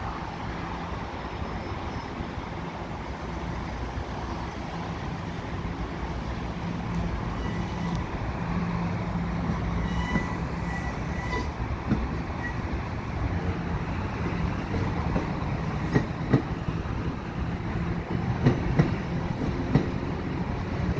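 Exo commuter train of Bombardier multilevel coaches rolling past while arriving at the station: a steady rumble with a low hum, slowly growing louder. A faint brief wheel squeal comes about ten seconds in, and wheels click over rail joints near the end.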